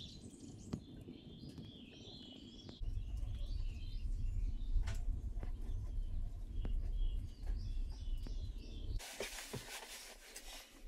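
Small woodland birds chirping and calling over a low rumble. About nine seconds in the birds give way to a steady hiss.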